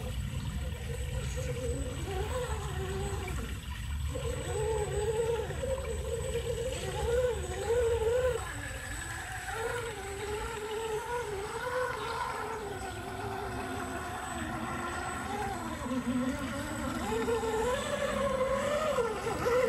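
Electric motor and gear drive of a 1/10 scale RC crawler whining as it wades through creek water, the pitch wavering up and down with the throttle. Water rushes and sloshes underneath.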